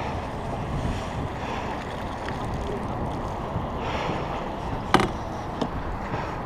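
Steady rushing noise of fast river water around a small boat, with a sharp knock about five seconds in and a lighter one just after.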